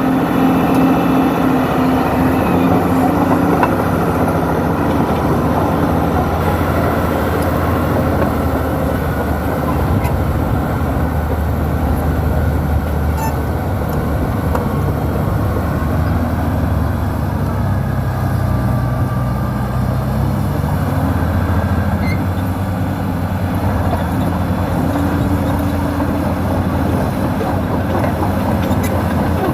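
Diesel engine of a New Holland crawler dozer running steadily while working, its pitch shifting a little now and then as the load changes.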